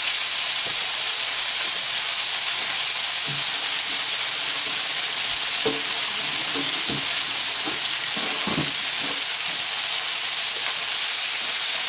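Chicken breasts, pounded thin, frying in hot olive oil in a large frying pan: a steady sizzle.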